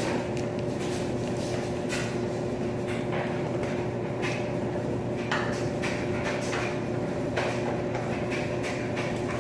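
Coin-op laundry machines running with a steady hum, dotted with irregular light clicks and knocks.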